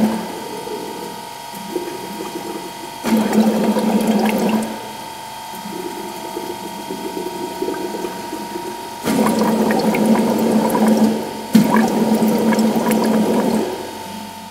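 Air blown through tubes into water-filled glass jars and jugs, bubbling and gurgling. Loud bursts of bubbling swell and fade three or four times, with softer bubbling between, over a steady high hum.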